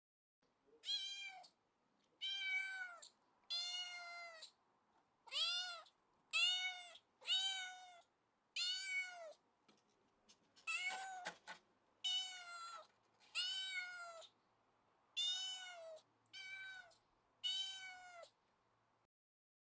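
A domestic cat meowing over and over, about a dozen separate meows, each rising then falling in pitch. One call about eleven seconds in is rougher and noisier than the rest.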